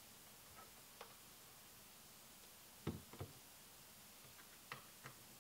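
Sparse small clicks and taps of a screwdriver and steel screws against an aluminium camera-flash cage as the screws are driven in, with two slightly louder knocks about three seconds in.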